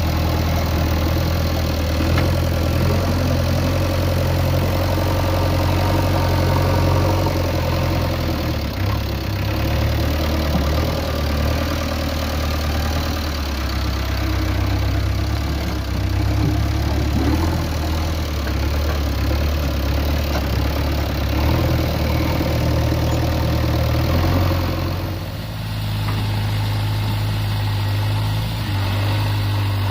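JCB 3DX backhoe loader's diesel engine running steadily. The sound dips briefly about 25 seconds in, then carries on more evenly.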